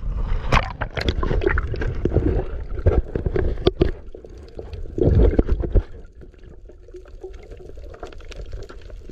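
Water splashing and sloshing with scattered knocks, busiest for about the first six seconds and then settling to a quieter wash.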